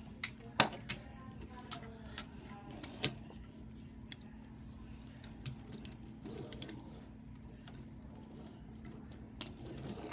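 Die-cast Hot Wheels toy cars clicking and clacking against a wooden table as they are picked up and set down. The clicks come close together in the first three seconds and are scattered after that, over a steady low hum.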